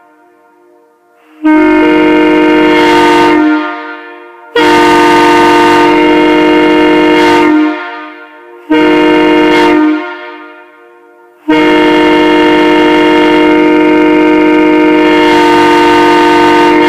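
Prime 990 locomotive air horn, a former Burlington Northern horn with remachined power chambers, sounding a loud steady chord in four blasts: three shorter ones of two to three seconds, then a long one from about eleven seconds in. Each short blast dies away in a ringing tail when the air is cut.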